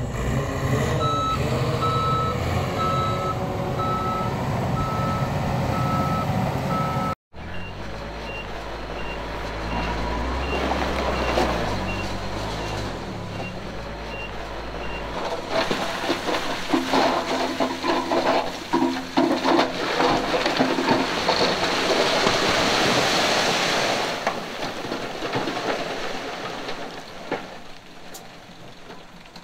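A heavy diesel machine's reversing alarm beeping steadily over its running engine. After a sudden cut about seven seconds in, a second, higher-pitched reversing alarm beeps more faintly over engine noise.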